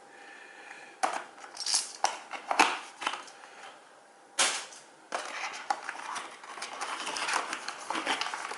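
A keycap box and its packaging being handled: several sharp clicks and knocks, then, about five seconds in, a steady crackly rustle of packaging with small ticks.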